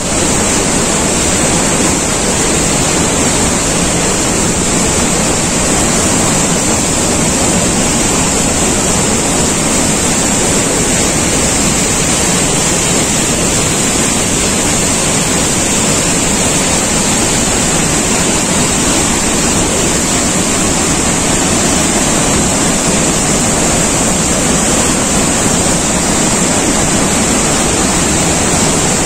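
Floodwater pouring through the open spillway gates of a dam at full discharge: a loud, steady rush of churning white water.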